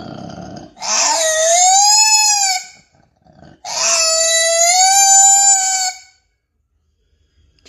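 An animal giving two long, high-pitched crying calls, each about two seconds, the pitch arching gently up and down, after a brief rough noise at the start.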